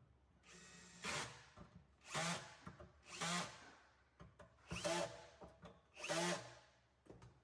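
Power drill with a Phillips bit driving bus bar screws in five short bursts of about a second each, with small clicks between them.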